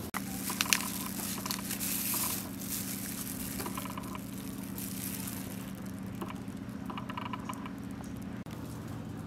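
A large cooked shrimp pulled apart and peeled by hand in a thin plastic glove: the glove crinkles and the shell cracks, with a few sharp clicks about half a second in. A steady low hum sits underneath.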